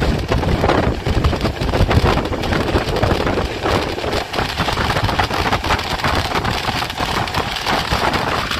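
Passenger train coaches running at speed, heard from an open door: a steady rumble of wheels on the track with continual rapid clicking and clatter.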